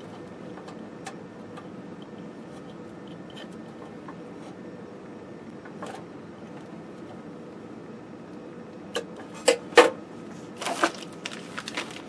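Small clicks and taps of hands handling a capacitor block and its wire leads against a steel chassis, over a steady low background hum. A few sharper clicks come close together near the end.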